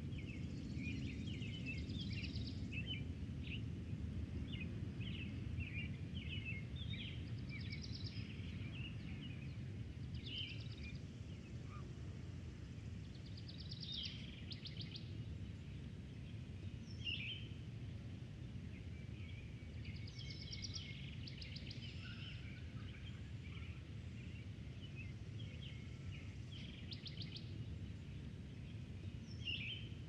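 Rural summer field ambience: a steady low rush of wind under songbirds chirping, with scattered short calls and quick trilled phrases throughout, busiest in the first half.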